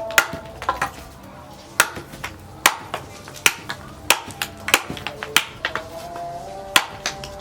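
Sharp knocks at irregular intervals, roughly one a second, over background music.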